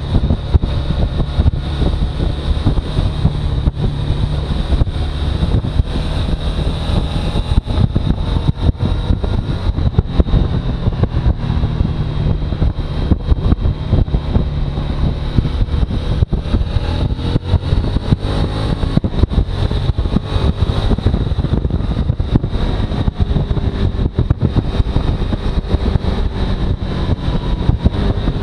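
Suzuki V-Strom motorcycle engine running with a rough, uneven noise over a low hum and a steady high whine, the sound the owner presents as a bad sound.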